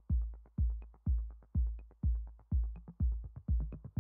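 Electronic background music with a steady deep kick drum, about two beats a second.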